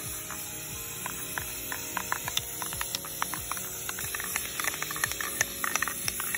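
Aerosol can of Rust-Oleum paint and primer spraying in a steady hiss, over background music.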